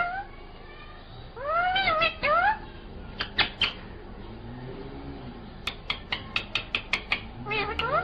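Rose-ringed parakeet (Indian ringneck) giving a few short calls that rise and fall in pitch, mewing like a cat. In the middle comes a quick run of sharp clicks, about six a second, then more calls near the end.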